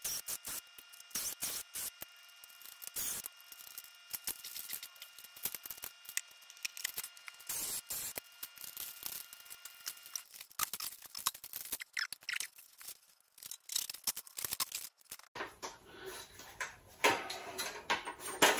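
Handling noise as stiff heliax-type coaxial cable is worked into 3D-printed plastic spacers and dragged on a tiled floor: a run of irregular short clicks, scrapes and rubs.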